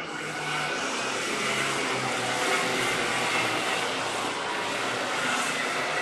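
Racing kart engine running at speed, a steady wavering note under a dense hiss.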